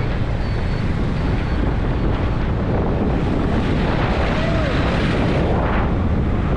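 Strong wind buffeting the microphone on a moving motorbike, a steady loud rush with heavy low rumble that covers the bike's engine and road noise.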